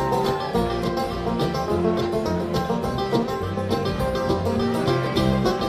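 Bluegrass music, an instrumental passage with banjo picking over a steady beat and no singing.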